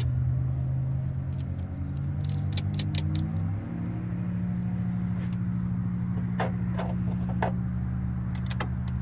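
A motor running with a steady low hum, its pitch shifting upward about three and a half seconds in. Light clicks and rattles come near the end.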